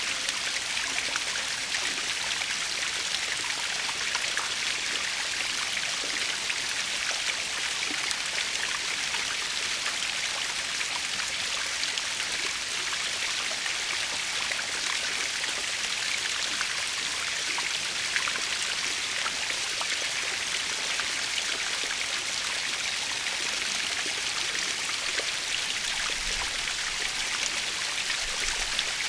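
Small waterfall splashing and pouring steadily, a constant hiss of falling water with fine spatter.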